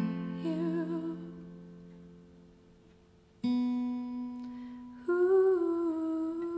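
Takamine acoustic guitar strummed once, the chord left ringing and fading away for about three seconds, then strummed again. Near the end a woman's voice comes in with a wordless, held note that wavers in pitch over the ringing chord.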